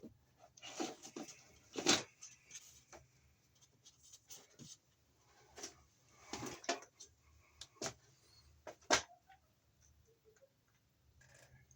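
Irregular scraping, rustling and knocking of an electrical cable being pulled out of a junction box, with two louder knocks, about two seconds in and about nine seconds in.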